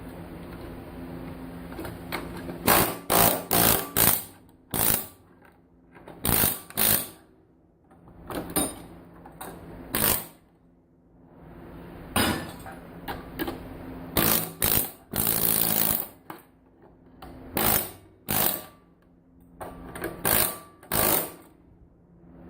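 Pneumatic air chisel (air hammer) firing in about twenty short bursts, most a fraction of a second long and one held for about a second and a half, as it knocks components off electronic circuit boards.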